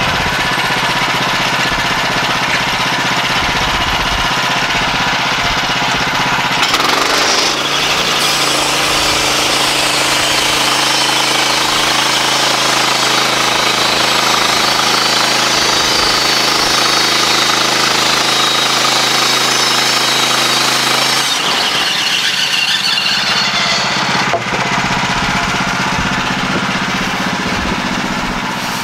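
Woodland Mills HM126 portable bandsaw sawmill running, its gas engine driving the band blade as it saws along a log. The engine note shifts about seven seconds in and again a little after twenty seconds.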